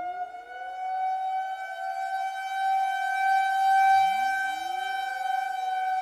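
Civil defense sirens: one holds a steady wail while others wind up beneath it, rising in pitch from a low growl, one of them about four seconds in.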